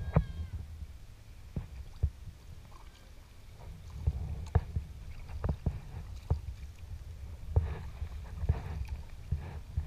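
A Prijon Seayak 500 LV sea kayak being paddled: water splashing and slapping against the hull in irregular sharp knocks over a steady low rumble.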